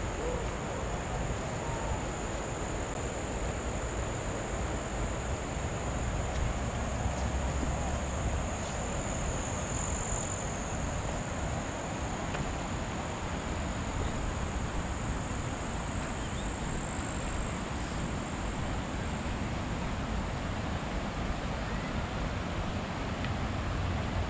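Steady rushing noise at an even level, with a continuous high-pitched insect drone over it.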